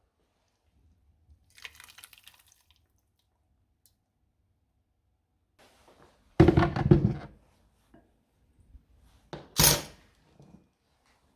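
Kitchenware being handled: a faint rattle about two seconds in, then a loud thunk with clatter, as of a pot or blender jug set down on a counter, and two sharper knocks near the end.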